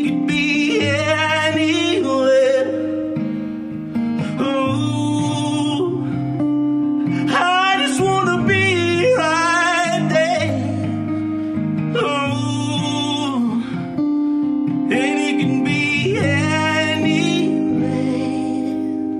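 Live acoustic performance: a singer sings phrases over strummed acoustic guitar chords, with short pauses in the vocal between lines.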